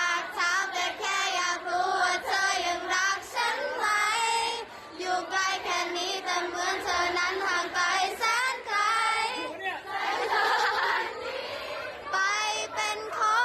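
A high-pitched voice singing, the pitch bending up and down, with a brief noisier stretch about ten seconds in.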